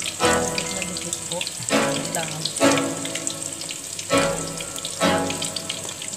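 Hot oil sizzling steadily around meatballs deep-frying in a pan, under background music with a new note or chord about every second.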